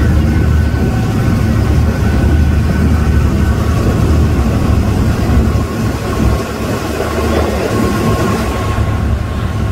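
Amphibious tour vehicle's engine running steadily as it cruises on the water, a constant low drone.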